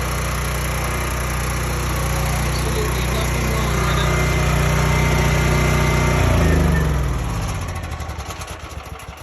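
Portable generator's small gasoline engine running steadily with the choke off, now running properly after its carburetor was cleaned. About six and a half seconds in it is shut off and winds down, slowing and fading out.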